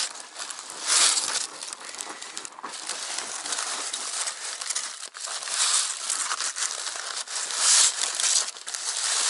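Aluminium foil being crumpled and folded by hand around a fish, a steady crinkling that swells louder about a second in and again near the end.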